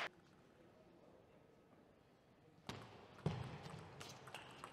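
Near silence, then from about two and a half seconds in, a few sharp clicks of a table tennis ball striking bats and table as a rally starts.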